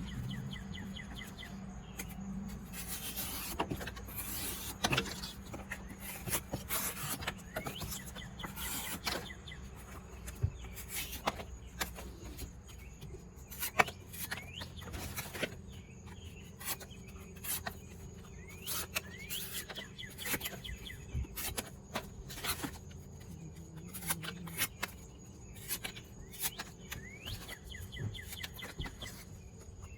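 Spyderco Yojimbo 2 folding knife slicing through thin cardboard: repeated short rasping cuts and scrapes, a few drawn out longer.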